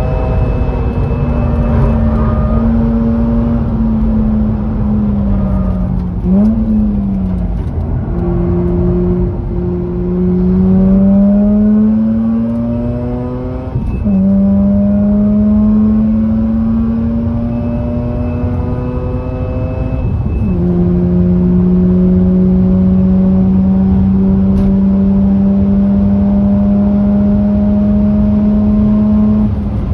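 Mazda RX-8's twin-rotor rotary engine, breathing through an aftermarket cat-back exhaust, pulling hard under load. Its pitch climbs and drops sharply at each gear change, about 6, 14 and 20 seconds in, then holds steady for the last nine seconds.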